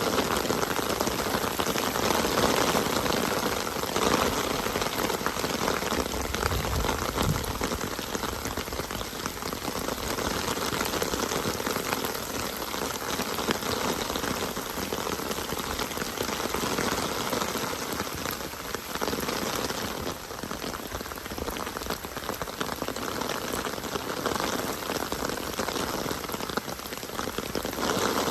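Steady rain falling in a dense, even patter, with no pauses.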